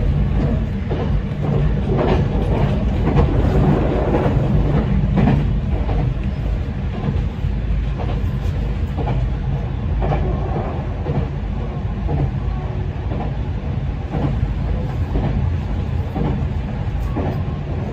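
Meitetsu 9500 series electric commuter train running along the line, heard from the front of the car: a steady low rumble of wheels and motors, with scattered clicks and knocks from the wheels on the rails.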